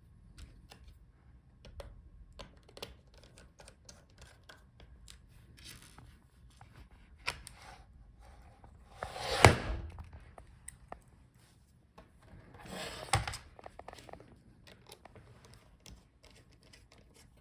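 Light clicks and taps from handling a laptop's screen back cover and hinges during reassembly, with two louder scraping sounds, each about a second long, about nine and thirteen seconds in.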